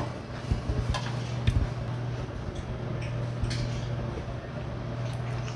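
Eating sounds: metal chopsticks click a few times against a bowl in the first couple of seconds, then chewing, over a steady low hum.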